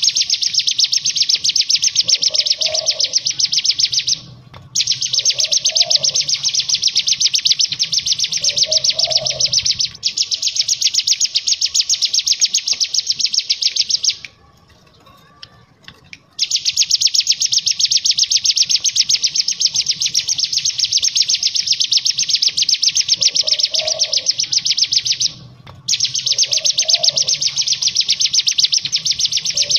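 Ciblek gunung (a small prinia) singing a long, very fast, dry rattling trill, the 'ngebren' song, in stretches of several seconds with brief breaks and one longer pause about halfway.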